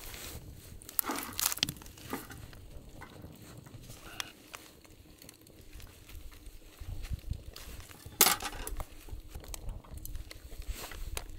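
Gloved hands handling and stuffing a raw whole chicken on a wooden cutting board: soft rustling with a few sharp clicks and knocks, the loudest about eight seconds in.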